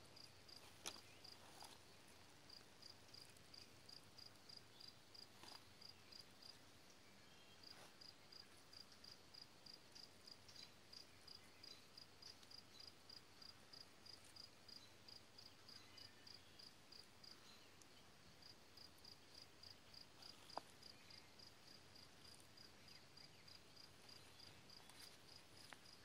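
Faint, steady chirping of a cricket: a high chirp about three times a second, pausing briefly twice, with a couple of soft knocks.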